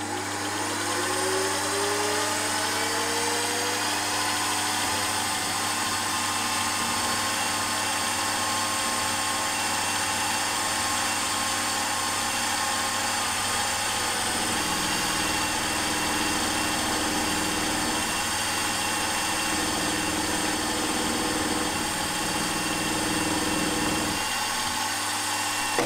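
Milling machine spindle spinning up, then an 8 mm end mill cutting into an aluminium cylinder head: a steady motor hum with a whine. The pitch rises over the first few seconds, the tone shifts about halfway through, and the machine stops just before the end.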